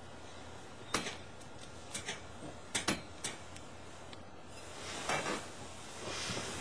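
Handling noises: a few sharp clicks and knocks in the first half, then clothing rustling twice as a man gets up in a heavy coat.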